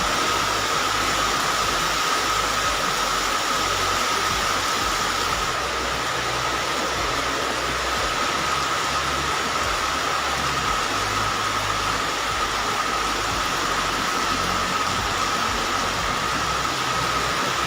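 Heavy tropical downpour with strong wind: a loud, steady rush of rain and low wind buffeting, with a steady high tone running through it.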